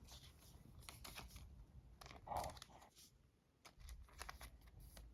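Near silence with faint scattered clicks and light rustling of trading cards being handled.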